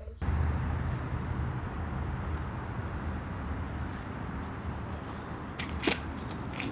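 Steady low rumble of city street traffic, with a few footsteps on the sidewalk starting near the end.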